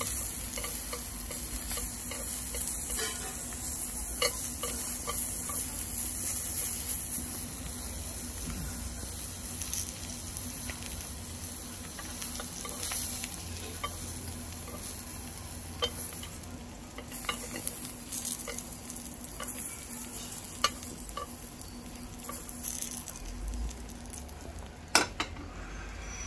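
Silkworm pupae and pork belly sizzling on a hot griddle plate, with steel chopsticks and a metal spoon tapping and scraping on the plate as the pupae are turned and scooped. The sizzle eases after several seconds, and one sharper click comes near the end.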